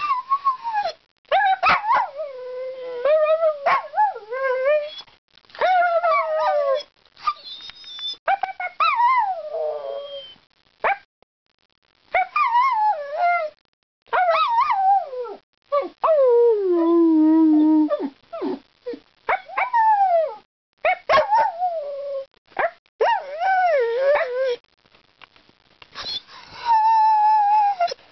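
A dog 'singing' or 'talking': a string of drawn-out, howl-like calls that slide up and down in pitch, in phrases of a second or two with short breaks between them. About halfway through, one longer call falls steadily lower.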